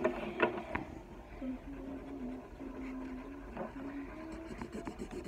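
A girl humming quietly, holding a few low notes and stepping between them, over the faint scratch of felt-tip markers on paper. A few sharp clicks come in the first second.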